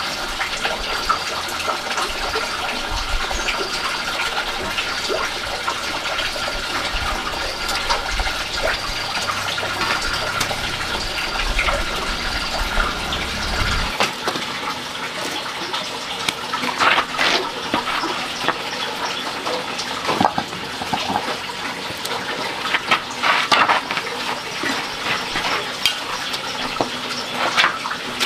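Water running steadily, with scattered knocks and clatter over the second half.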